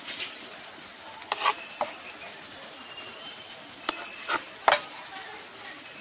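Steel ladle scooping thin batter and clinking against a steel tumbler and steel bowl: about six sharp metal clinks over a steady faint hiss.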